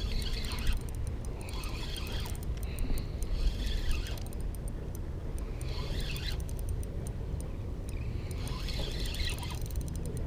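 Spinning reel being cranked, its rotor and gears whirring in uneven spurts with fine rapid ticking, over a steady low rumble.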